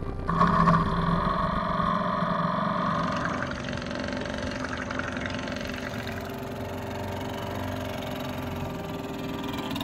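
Small 22cc TAS two-stroke outboard motor spun over with a cordless drill on its top nut and running; louder for the first three seconds or so, then settling to a steady idle.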